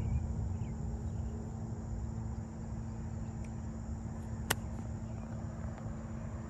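A golf club striking the ball once: a single sharp click about four and a half seconds in, over a steady outdoor background with a steady high hum and a few faint chirps.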